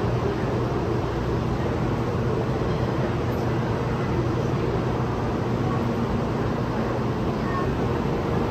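Steady low mechanical hum with a few constant droning tones, unchanging throughout and with no rise or fall in pitch.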